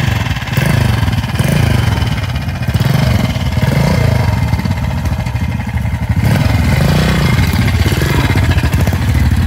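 Pre-1965 British trials motorcycle engine running close by, its pitch rising and falling again and again as the throttle is opened and closed.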